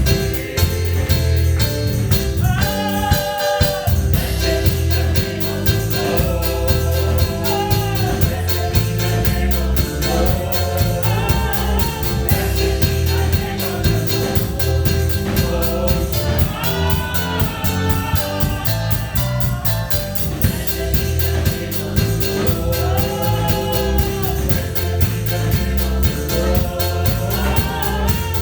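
Gospel music: voices singing held, swelling lines over a band with a drum kit and heavy bass, keeping a steady beat.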